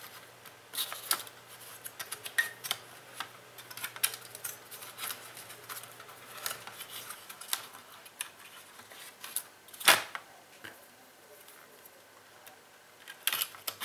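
Scattered small clicks and taps of plastic laptop parts being handled as the motherboard and its cables are fitted into the base of an Acer ES1-512 notebook, with one sharper knock about ten seconds in.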